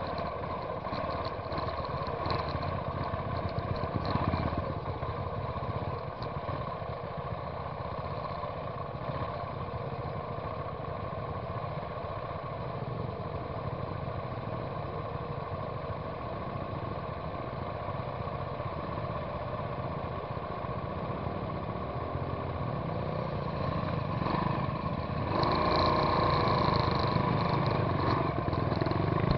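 Trail motorcycle engine running steadily while riding a rough dirt track. Near the end the engine sound grows clearly louder as another trail bike comes alongside.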